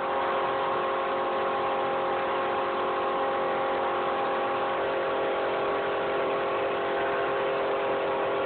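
Air compressor running steadily with a steady hum, together with the hiss of a paint spray gun spraying paint onto canvas.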